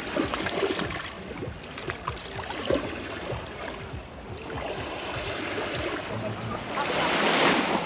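Small sea waves washing onto a beach, with wind on the microphone; a bigger wave washes in about seven seconds in.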